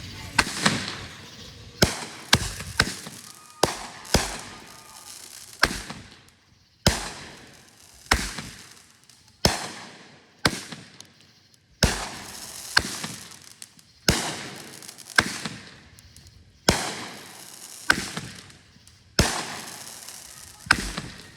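A run of consumer fireworks going off: about twenty sharp bangs, roughly one a second and sometimes two close together, each dying away in a short fading tail.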